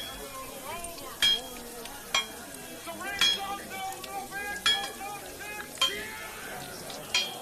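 A spoon clinking against a glass as a drink is stirred: six sharp, ringing clinks about a second apart. Under it run murmuring chatter and the sizzle of frying on a griddle.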